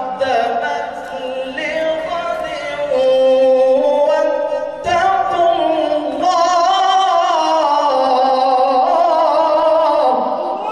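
A male qari chanting Quran recitation (tilawat) in Arabic through a microphone, in long held, ornamented melodic phrases. A new phrase begins about five seconds in.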